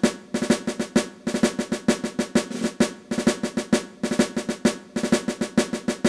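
Intro music: a fast snare drum cadence of rolls and accented hits, with some bass drum.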